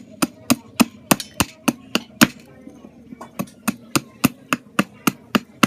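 Sharp, regular strikes of a hand tool on wood, about four a second, with a short pause about halfway through.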